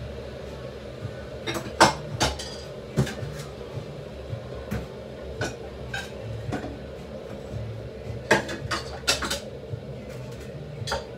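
Clinks and knocks of crockery and cutlery being handled on a kitchen counter, a dozen or so irregular sharp strikes, over a steady low hum.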